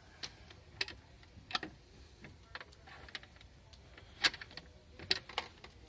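Burning truck popping and cracking: irregular sharp cracks, about seven in a few seconds, the loudest about four seconds in.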